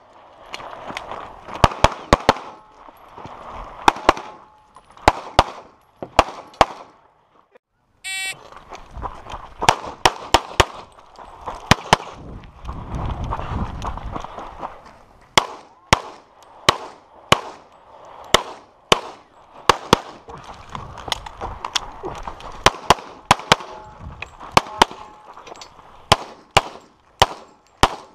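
Pistol shots fired rapidly in strings, mostly in quick pairs. After a brief silent break about eight seconds in, a shot timer gives its short start beep, and another string of pistol fire follows.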